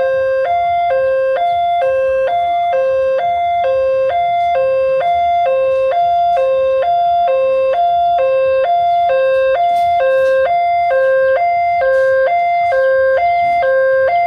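Railway level-crossing warning alarm sounding from its pole-mounted loudspeaker while the barriers are down: an electronic two-tone signal that alternates evenly between a lower and a higher note, switching about every third of a second.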